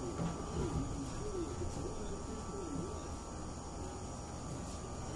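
Night insects chirring steadily over a low background hum, with faint wavering low sounds beneath.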